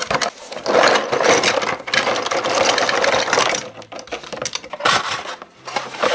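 Plastic packaging crinkling and rustling as a toy set's bag is opened, in dense crackling stretches with short pauses.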